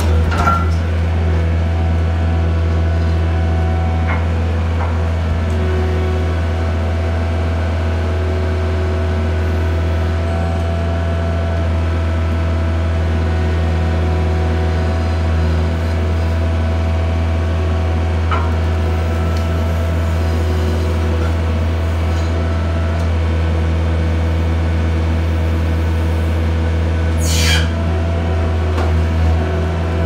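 Skid steer engine running steadily, working an inverted hydraulic wood splitter, with a sharp knock near the end.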